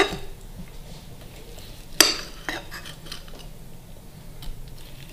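Kitchen knife slicing through a fried stuffed potato on a ceramic plate. The blade knocks on the plate with a sharp clink at the start and again about two seconds in, followed by a lighter tap.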